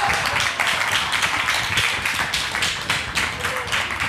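Congregation clapping, many hands at once, with a few voices calling out faintly; it dies away near the end.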